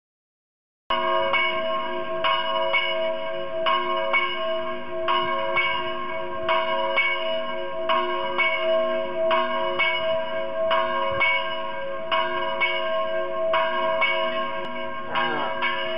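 Church bells pealing, several bells of different pitch struck over and over in quick succession, their hum ringing on between strikes. The ringing starts abruptly about a second in.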